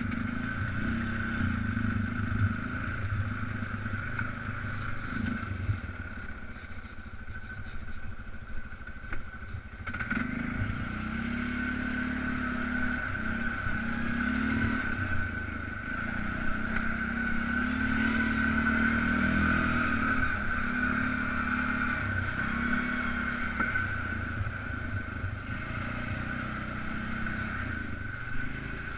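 Polaris Sportsman 500 ATV's single-cylinder four-stroke engine running on the trail. Its pitch rises and falls with the throttle, picking up about ten seconds in and again past the middle.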